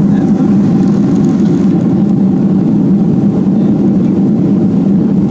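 Jet airliner engines and rushing air heard from inside the cabin during the climb after takeoff: a steady, loud, low drone.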